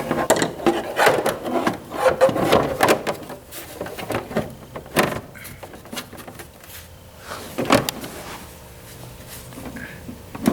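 Massage chair's rear plastic shroud being worked onto the frame: a jumble of plastic rubbing, rattling and knocks in the first three seconds, then sharper single knocks about five and nearly eight seconds in as its tabs are pushed into their slots.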